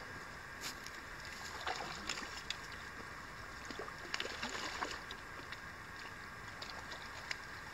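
A hooked rainbow trout splashing at the water's edge as it is landed by hand. A few short splashes and clicks sound over a steady background hiss.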